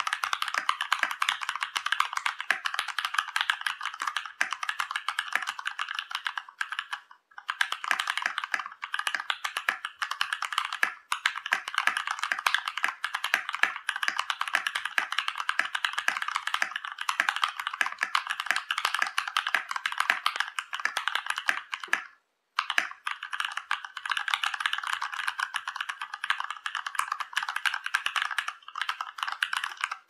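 Fast, continuous typing on a Ducky x Varmilo Miya Pro mechanical keyboard with top-lubed Cherry MX Red linear switches, PBT keycaps, a sound dampener and clipped, lubed stabilizers. It is a dense run of keystroke clacks, with two short pauses, one about seven seconds in and one about two-thirds of the way through.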